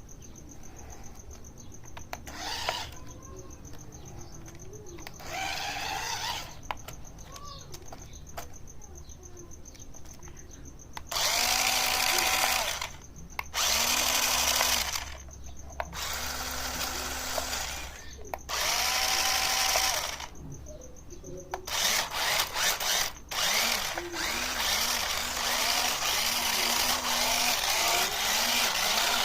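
Small electric motors of a 4WD RC stunt car whirring in short bursts of one to two seconds, a drill-like whine, then running almost continuously with sharp clatters over the last third.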